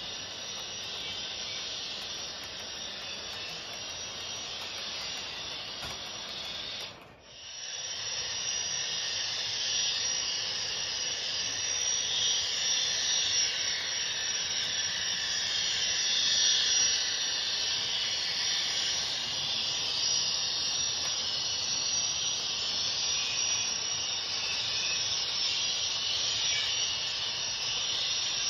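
Sound decoder of an HO-scale ScaleTrains Union Pacific 'Big Blow' gas-turbine locomotive model playing a steady turbine hiss as the model runs with its freight train. The sound drops out briefly about seven seconds in, then returns a little louder.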